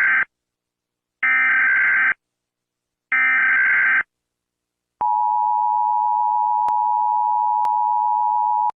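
Emergency Alert System tones: three SAME digital header bursts about two seconds apart, then the steady two-tone attention signal for about four seconds, which cuts off suddenly.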